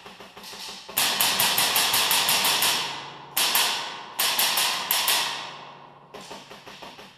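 Airsoft electric rifle firing rapid bursts of automatic fire, echoing in a tiled room. The longest burst runs about two seconds, followed by several shorter ones.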